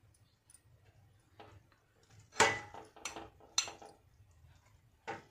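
Steel fork and spoon knocking and scraping against a steel plate while pulling apart pieces of cooked chicken in curry: a few sharp clinks, the loudest about two and a half seconds in.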